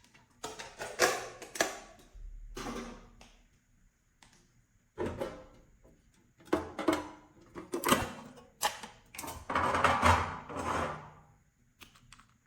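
Slime being squeezed and mixed by hand: irregular bursts of sticky squishing full of small clicks and pops, about eight in all.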